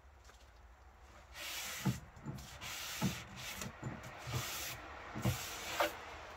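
Aerosol spray can hissing in about five short bursts, each roughly half a second, with light knocks and handling sounds between them, as the locomotive is cleaned down.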